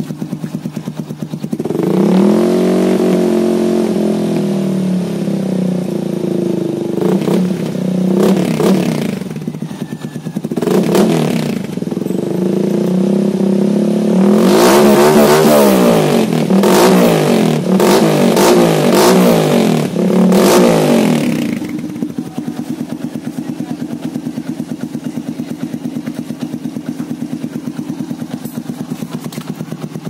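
Yamaha Vega Force i's single-cylinder four-stroke engine through an Endurance aftermarket muffler, idling, then revved from about two seconds in with several throttle blips, a longer run of quick revs in the middle, and back to a steady idle for the last third.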